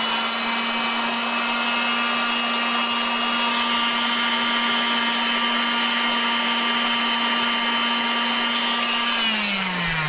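Fein oscillating multi-tool running at constant speed, a steady high buzz. It is switched off about nine seconds in, and its pitch falls as it winds down.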